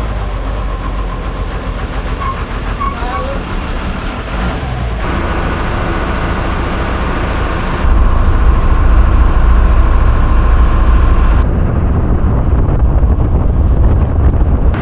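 MSRTC bus under way, with steady engine and road noise and a deep low rumble. The rumble gets louder about eight seconds in, and the sound changes abruptly a few times.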